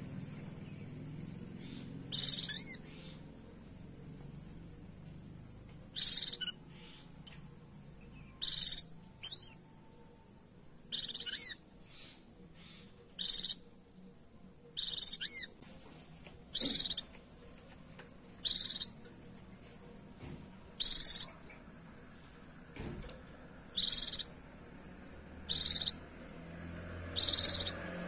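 Female white-eye (pleci) giving short, high, quickly warbled calls, one about every two seconds, about a dozen in all. This is the female's call to a male, used as a lure to excite males and set them singing.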